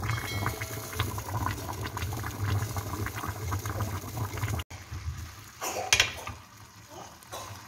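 A pot of rice boiling hard, with dense bubbling over a low rumble. The sound breaks off for an instant a little after four and a half seconds in and continues more quietly, with a brief sharp knock about six seconds in.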